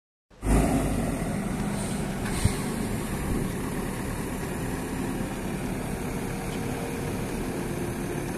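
Backhoe loader's diesel engine running steadily as the machine drives over dirt, starting about half a second in after a moment of silence.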